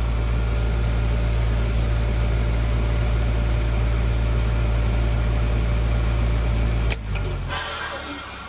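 Goodman heat pump outdoor unit running with a steady low hum. About seven seconds in it clicks and the hum cuts out, then a loud hiss of refrigerant follows and fades as the unit goes into a Smart Shift defrost.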